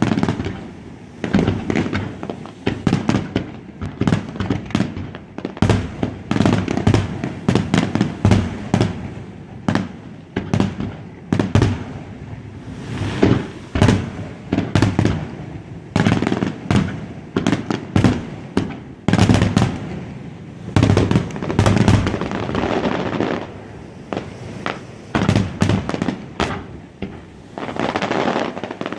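Fireworks display: shells bursting in rapid, overlapping bangs, several a second, with a low rumble between them.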